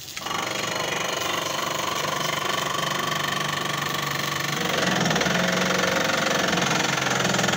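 Electric motor of a homemade hydraulic press built from a 12-tonne car bottle jack, starting abruptly and running steadily as the press bears down on 20 mm square steel tubing. About five seconds in, its note steps higher and louder.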